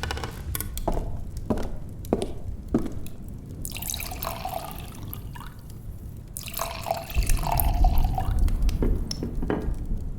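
Brandy poured from a bottle into a glass in two long pours, with light clinks and knocks of glass and bottle before and after.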